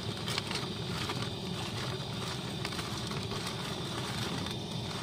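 Hollowed pointed gourds being turned and rubbed by hand in a steel bowl, giving soft scattered knocks and rustles, over a steady background noise.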